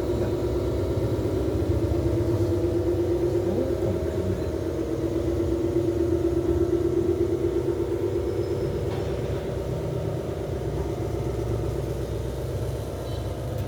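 A 1/14-scale RC Hino 8x8 dump truck running: a steady whine from its electric motor and gearbox over a low engine-like rumble from its sound unit, easing off a little in the second half.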